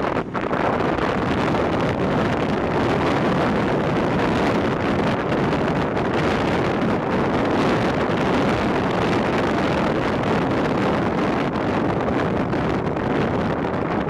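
Strong wind blowing across the microphone, a steady rushing noise, with breaking surf beneath it.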